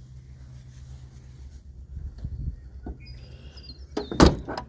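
A brief bird chirp a little past halfway, then two or three sharp clacks about four seconds in from the chrome tailgate handle and latch of a 1977 Ford Country Squire wagon being worked by hand.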